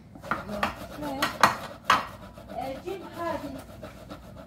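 Kitchen dishes and plastic bowls clattering as they are handled: a few sharp clacks and knocks, the loudest about a second and a half in.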